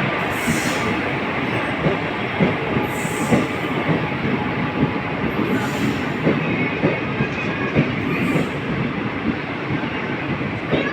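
A train passing along the platform at speed: a steady, loud rolling roar with the wheels knocking over the rail joints in a fast clatter, and brief high hissing bursts every two to three seconds.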